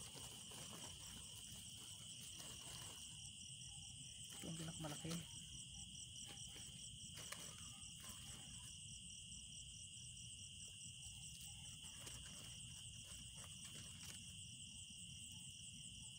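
Crickets and other night insects chirping steadily and faintly, high-pitched and without a break, with a few faint rustles of handling.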